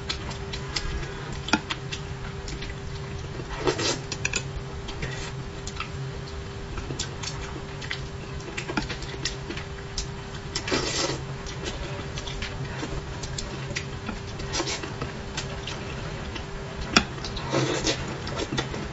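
Close-up eating sounds: a person chewing and sucking braised fish, with chopsticks clicking against a bowl and four or five short slurps, over a steady low hum.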